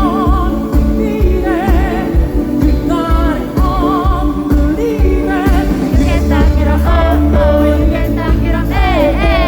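Live pop concert music through the PA: a male voice sings with wide vibrato over a band with a heavy, steady bass-drum beat.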